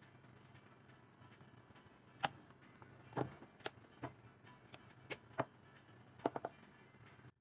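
Irregular light clicks and taps of a spatula against a ceramic bowl as whipped cream is spread over a cake layer, over a faint steady low hum.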